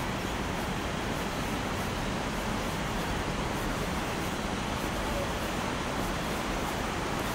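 Steady, even rushing outdoor background noise with no distinct events standing out.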